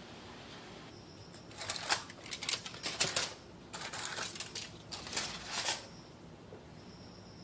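Aluminium foil crinkling in a series of rustly bursts over about four seconds as it is pulled off the tops of glass pudding cups.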